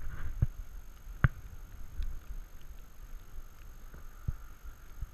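A few isolated sharp clicks or knocks, about four in five seconds, over a low steady rumble.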